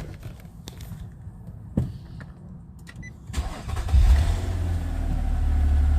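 A few light clicks, then about three seconds in the 2010 Nissan Maxima's 3.5-litre V6 is cranked and fires, surging briefly before settling into a steady idle. This is the first start on freshly fitted spark plugs.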